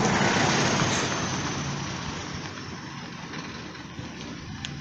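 A road vehicle going past, loudest at first and fading away over the next few seconds.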